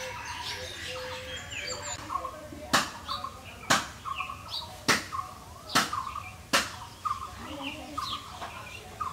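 Small birds chirping and calling, with five sharp knocks about a second apart through the middle.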